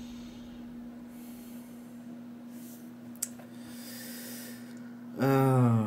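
A man breathing audibly through his nose over a steady low electrical hum, with a single small click about three seconds in. Near the end he makes a short voiced sound that falls in pitch, like a sigh or hum of approval.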